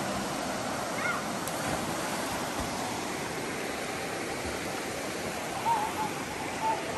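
Steady rushing noise, with a few short wavering calls about a second in and near the end.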